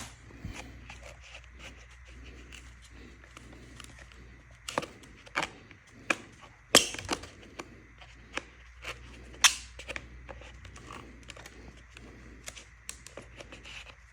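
Scattered clicks and knocks of e-bike parts and packaging being handled, with a few louder sharp snaps about five, seven and nine and a half seconds in.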